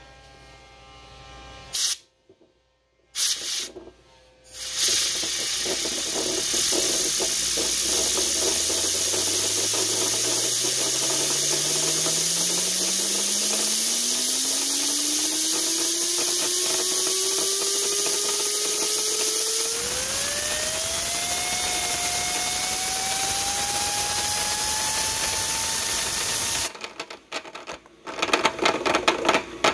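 Compressed air blasting steadily on two meshed MDF wooden gears, after a few short opening bursts. A whine rises in pitch for about twenty seconds as the gears speed up, and steps higher toward the end. Near the end the air cuts off suddenly, leaving a fast irregular clatter of the gears coasting at high speed.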